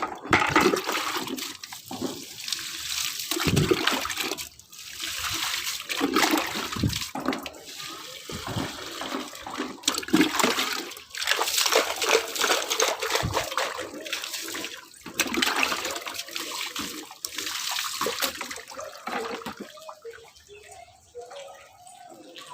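Water being poured onto potted plants in a series of pours, splashing into the soil, growing fainter near the end.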